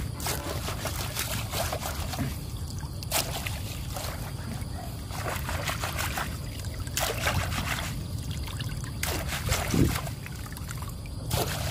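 Water splashing and trickling in repeated short bursts every second or two, as a frog trap is handled in shallow pond water.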